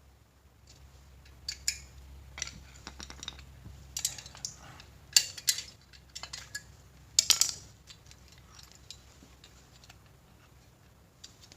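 Metal tools and parts being handled on a workbench: scattered clinks and clatters, the loudest about five and seven seconds in, over a faint low hum.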